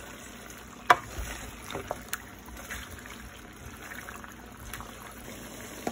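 Chunks of pork frying in lard in a pan to brown, a steady sizzle, with a few sharp knocks of a stirring utensil against the pan, the loudest about a second in.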